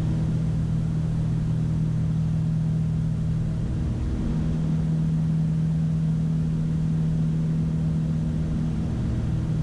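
Twin piston engines and propellers of a Piper Navajo Panther conversion, heard from the cockpit as a steady, even drone during climb-out after takeoff.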